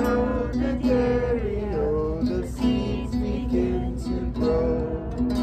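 Acoustic guitar strummed as accompaniment to voices singing a simple, folk-style children's song.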